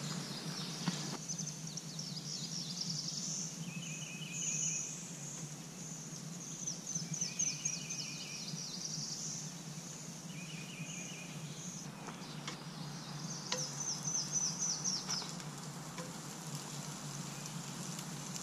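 Songbirds singing in the woods, with quick high trilled phrases and short repeated chirping phrases every second or two, over a steady low hum.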